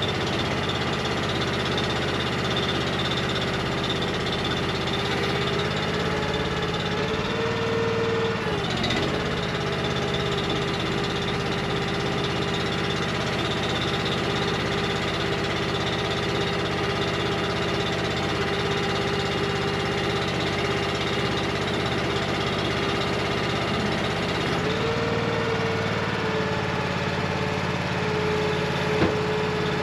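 Engine running the roll-off trailer's hydraulics at low throttle to pull the loaded bin aboard, a steady hum. Its pitch rises briefly and drops back twice, and there is one sharp click near the end.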